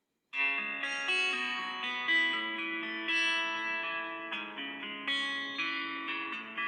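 A built-in Redmi 8A ringtone playing as a preview: a plucked-string melody of separate notes. It starts suddenly about a third of a second in, out of silence.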